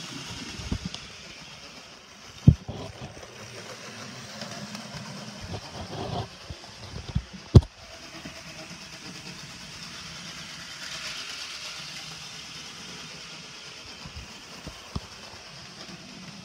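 Hornby Irish Rail model locomotive running around its oval of track: a steady motor whir with a stream of small clicks from the wheels and track, a very noisy runner. Two sharp knocks stand out, about two and a half and seven and a half seconds in.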